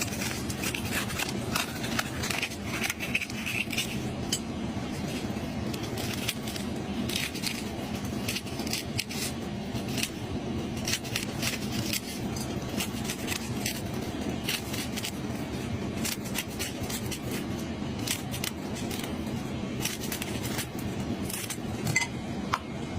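A sea urchin's shell being cut open and scraped clean: many irregular sharp clicks and scrapes over a steady low background rumble.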